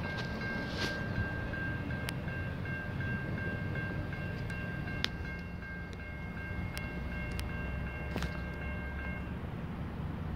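Electronic railroad crossing bell dinging in a fast, even repeat over a steady low rumble. The bell stops about nine seconds in.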